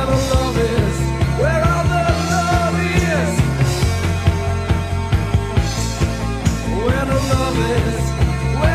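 Post-punk rock song playing: a steady drum beat and held bass notes, with a melodic line sliding up and down in pitch over them.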